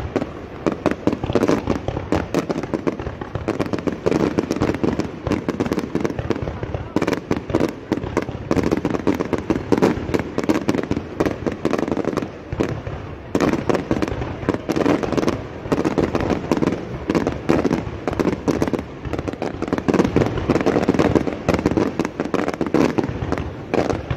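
Aerial fireworks bursting and crackling in a rapid, unbroken string of bangs and crackles.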